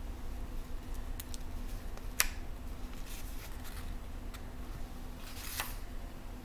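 Coloring book's paper page being turned by hand: a single sharp tick about two seconds in, then a brief paper swish near the end as the page goes over, over a low steady hum.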